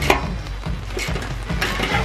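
Ratchet wrench clicking in short strokes as a bolt is tightened on a steel snowplow blade bracket, over background music.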